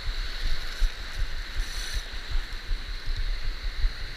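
Breaking surf washing in over a shallow coral reef flat, a steady hiss of foaming water, with irregular low buffeting of wind on the microphone.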